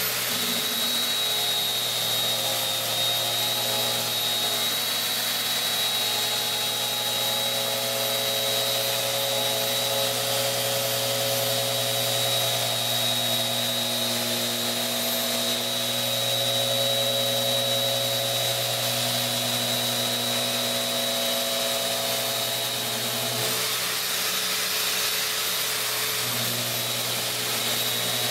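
Bosch GET 75-150 random orbit sander running steadily with a high whine while its pad sands white paint off a pine board.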